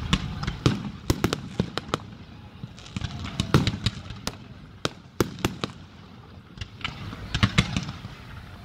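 Aerial fireworks display: rapid, irregular sharp cracks and bangs from shells and comets going off overhead, coming in clusters with short lulls between them.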